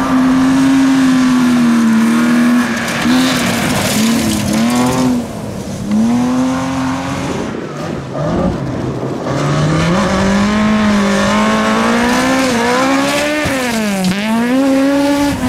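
Rally car engines driven hard, several cars one after another: each engine note climbs under full throttle, then drops and breaks off at gear changes and lifts.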